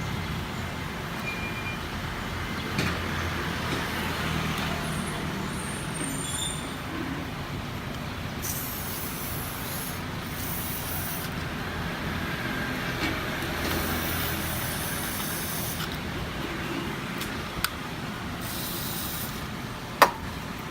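Aerosol brake cleaner sprayed onto a disc brake in four hissing bursts of about a second each, over a steady low background hum, with a sharp click near the end.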